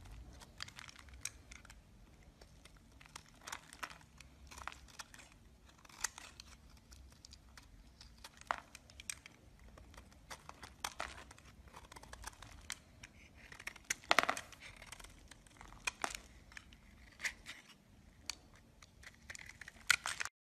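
A knife blade cutting and shaving into a bar of soap, crisp crackling scrapes at an irregular pace as flakes break away and crumble onto the pile. The loudest cut comes about two-thirds through.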